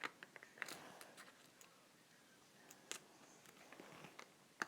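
Near silence with a few faint, scattered clicks and scrapes: a lock pick and tension wrench being worked inside a lock.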